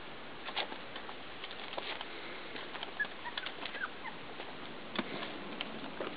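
Four-week-old puppies moving about on wood-shavings bedding, giving scattered light clicks and rustles over a steady hiss. A few short, falling high chirps come about halfway through.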